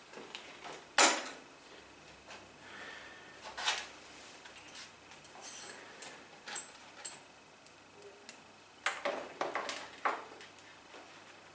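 Scattered metallic clicks, clinks and knocks of hands working with small metal parts and tools while connecting alarm wires at a motorcycle battery, the sharpest about a second in and a quick cluster of them near the end.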